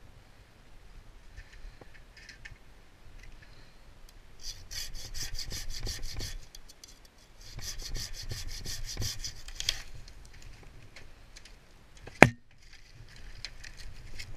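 A hand saw cutting wood: two spells of quick rasping strokes, each about two seconds long, with a single sharp knock about twelve seconds in.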